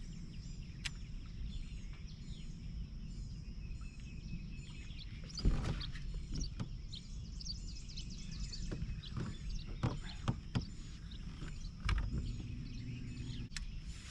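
Outdoor ambience: a steady high drone with a short chirp repeated about twice a second over a low rumble, broken by a few sharp knocks, the loudest about five and a half seconds in and another near twelve seconds.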